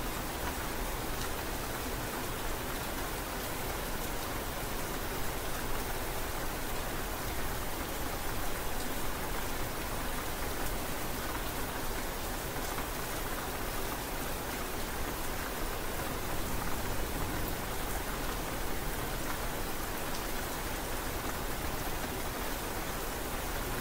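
Steady rain falling, an even hiss with small scattered drop ticks.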